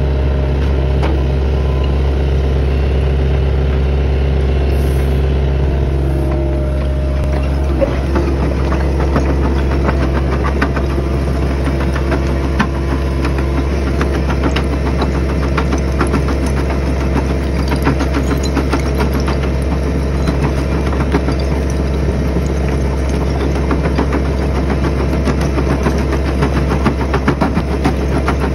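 Excavator engine running steadily while an Xcentric XC08 crushing bucket breaks brick and block rubble. From about eight seconds in, a dense crackle of stone cracking and crushed rubble falling out of the bucket rides over the engine.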